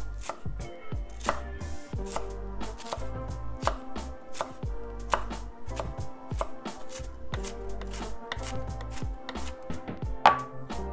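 Chef's knife chopping sweet peppers on a wooden cutting board: a quick, uneven run of blade strikes against the wood. Near the end comes one louder knock with a brief ring, as a ceramic bowl is set down on the board.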